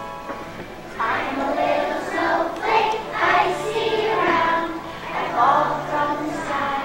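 A choir of young children singing together over recorded accompaniment music; the singing comes in about a second in.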